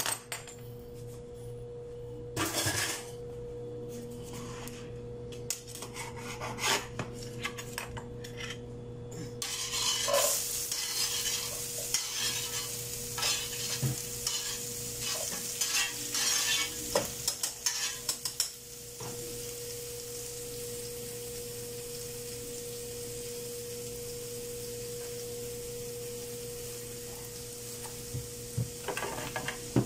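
Chopped carrot, onion, tomato and garlic sizzling in hot oil in a frying pan. The sizzle starts suddenly about a third of the way in, with clatter of utensils against the pan for several seconds, then settles to a steady frying hiss. Knife clicks and scrapes come before it, and a steady low hum runs underneath.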